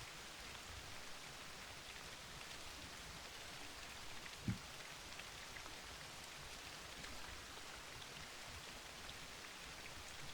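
Faint, steady rain pattering, with one short low thump about four and a half seconds in.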